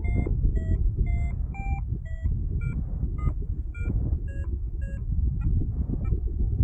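Paragliding variometer beeping about twice a second, the pitch of the beeps shifting up and down, over steady wind rush on the microphone. The beeps are the vario's climb tone, the sign of rising air in a thermal.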